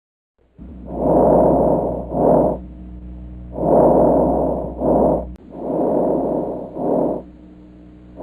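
Recorded breath sounds played for teaching abnormal lung sounds: repeated breathing cycles, each a longer noisy breath followed by a short one, about every two and a half to three seconds, starting about half a second in.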